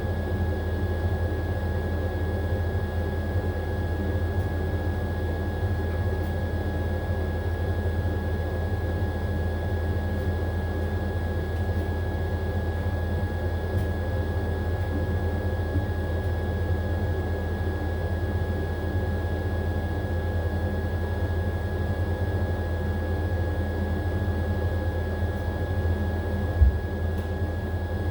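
AQUA AQW-DX12M drum washing machine in its spin cycle, running at a steady speed with a strong low hum and a thin high whine. One short knock near the end.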